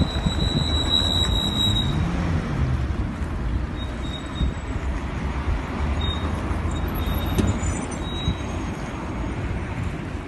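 Road traffic: vehicles driving past, with a steady rumble of engines and tyres. A thin high whine is heard for the first two seconds.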